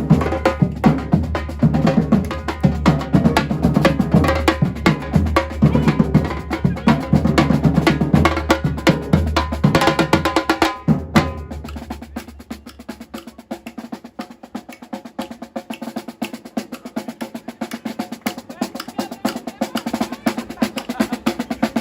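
Batucada drum group playing a dense, driving rhythm. About halfway through, the deep drums drop out and the lighter drums carry on alone, growing louder toward the end.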